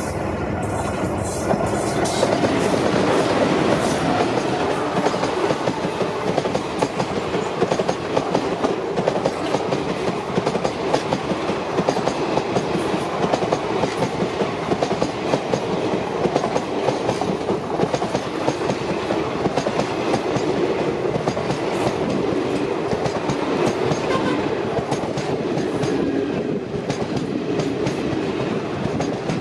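Twin WDM3A ALCO diesel locomotives of an express train passing close at speed, then a long rake of passenger coaches rushing by with a steady clickety-clack of wheels on the rails.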